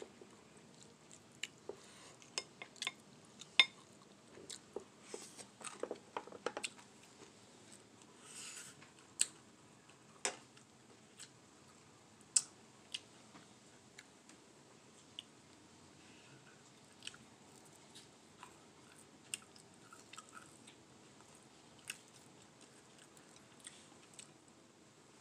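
A person chewing and biting food close to the microphone, eating fried fish and long-bean salad with the fingers. The chewing comes with irregular sharp clicks and wet smacks, busiest in the first several seconds and sparser after.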